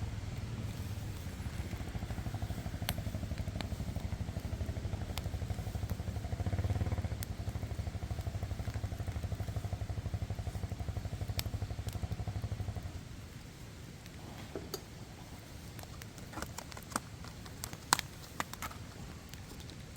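An engine idling with a steady low throb, which stops about thirteen seconds in; after that only scattered sharp clicks and crackles.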